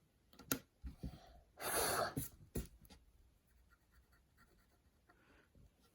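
Stylus scraping on a scratch-art sheet: a few short scrapes, one longer stroke about two seconds in, then only faint handling sounds.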